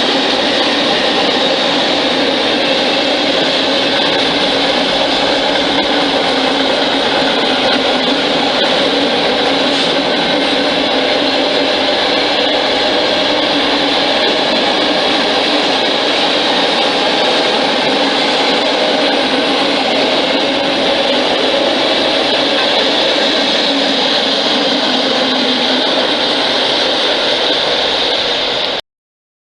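Train running, a loud steady noise that holds at an even level and cuts off abruptly near the end.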